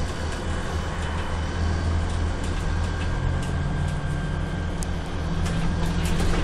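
Scania CN280UB city bus heard from inside the passenger cabin: the engine and drivetrain run with a steady low drone, and a higher tone joins about halfway through. A few light clicks near the end.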